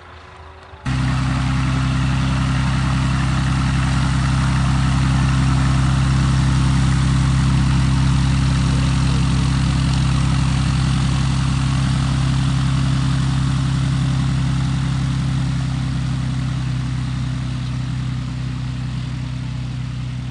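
Cessna 182A's engine and propeller running steadily, a loud even drone that starts abruptly about a second in and slowly fades over the last few seconds.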